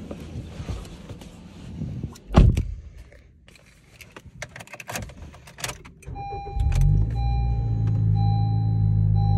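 Getting into a Honda Civic: a car door shuts with a loud thump about two seconds in, followed by small clicks. Then the engine starts and settles into a steady idle, while a dashboard chime beeps over and over.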